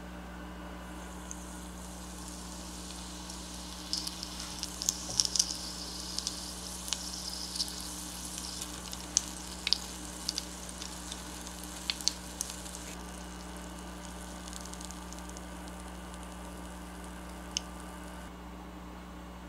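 Tiny breaded shrimp deep-frying in a small pot of hot oil: a steady sizzle with scattered pops and crackles. The crackling is busiest in the middle, and the sizzle stops near the end.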